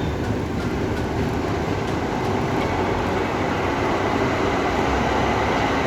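Edmonton LRT light-rail train running underground, a steady rumble of wheels and motors heard from inside the car.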